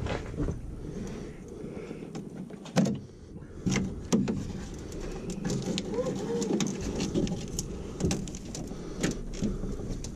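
Scattered knocks and clanks of hand tools and metal parts during the dismantling of a Honda Civic parts car, the two loudest knocks about three and four seconds in.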